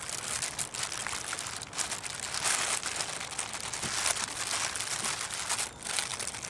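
Crinkling of a reflective foil bubble sunshade on a windshield as gloved hands work a wiper blade onto the wiper arm against it, with many small clicks and scrapes.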